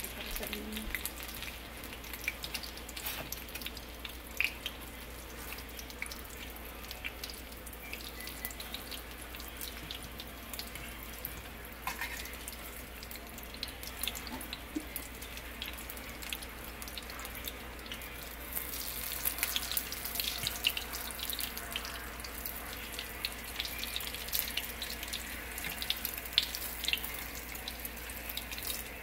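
Hot oil sizzling in a frying pan of egg-battered green bean bundles, with many scattered small pops. The sizzle gets louder about two-thirds of the way through.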